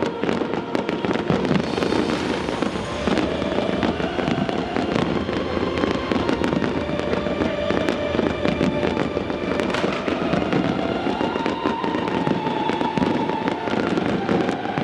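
Fireworks display: a dense, continuous run of pops and crackles with no pause, and music playing underneath.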